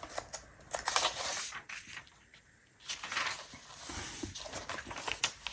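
Pages of a paper planner being turned and handled: soft rustles and light taps, with a short quiet pause about two seconds in.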